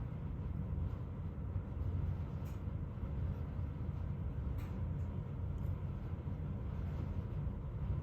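Steady low rumble of wind buffeting the microphone outdoors, with a few faint soft clicks.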